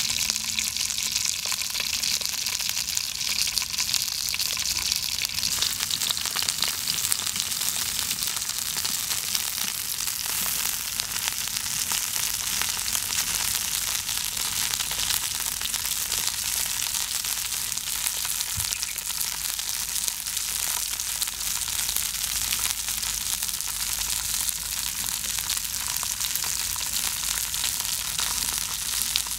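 Fish frying on a metal pan over a wood fire: a steady sizzling hiss with fine pops and crackles throughout.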